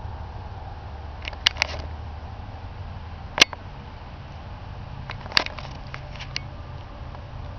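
Several sharp clicks and taps, the loudest about three and a half and five and a half seconds in, over a low steady background hum.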